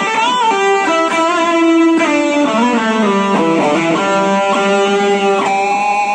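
Gibson Les Paul Supreme electric guitar playing a lead line of sustained single notes, with string bends and vibrato that make some notes waver and glide in pitch.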